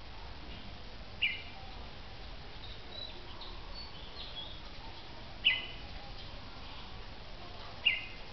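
Caged red-whiskered bulbuls calling: three short, loud call notes, with softer high chirps between the first two.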